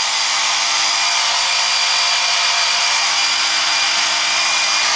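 Bosch EasyPump cordless electric inflator running steadily and loud, pumping air into a tubeless road tyre to seat its bead.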